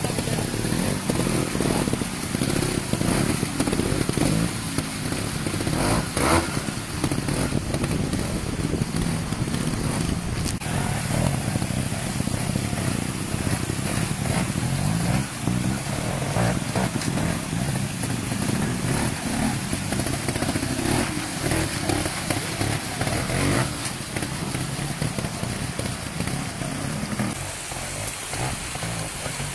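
Vintage pre-1965 trials motorcycle engines working at low revs over rocks, the revs rising and falling in short blips as the riders feed the throttle through the section. Occasional sharp knocks are heard over the engines.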